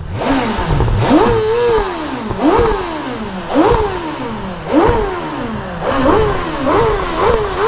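Stock litre-class inline-four superbike engine revved hard over and over, each rev climbing quickly and dropping back about once a second, then turning into quicker, shorter blips near the end.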